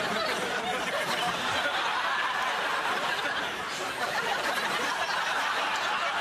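A group of people laughing together, a long, unbroken stretch of laughter at a fluffed take.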